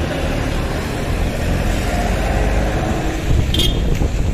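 Street traffic noise: a minibus engine running close by and moving off, over a steady wash of road noise. A brief high clink comes about three and a half seconds in.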